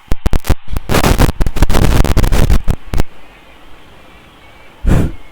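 A rapid run of loud bangs and cracks for about three seconds, then one more loud burst near the end.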